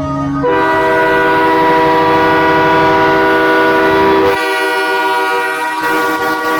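Truck air horn sounding in one long, steady, multi-note blast, shifting to a slightly different chord about four seconds in.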